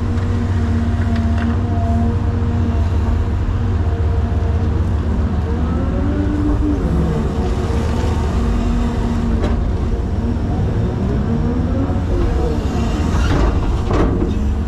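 Caterpillar 336 hydraulic excavator working, its diesel engine running steadily under load, with a whine that rises and falls in pitch twice as the hydraulics work, and a couple of knocks.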